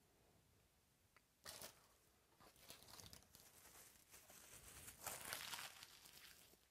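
Faint crinkling and rustling of handled packaging, in irregular bursts, the longest and loudest lasting about a second past the middle.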